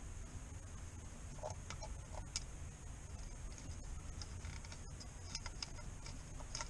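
A few faint plastic clicks and taps of rocker switches, wiring connectors and a switch panel being handled, scattered through, over a steady low background rumble.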